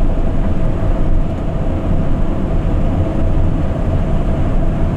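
Cab noise of a refrigerated van driving at motorway speed: a steady low rumble of engine and tyres on the road, heard from inside the cab.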